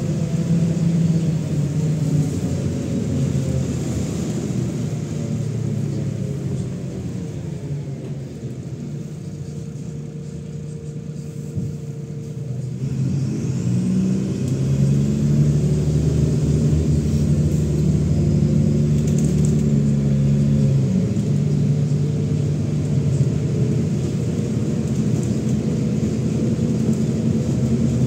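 MAZ-107 city bus's diesel engine heard from inside the cabin while under way. Its note falls over the first several seconds and drops to a quieter, lower running sound, then about halfway through it rises and grows louder as the engine picks up again, and it runs steadily to the end.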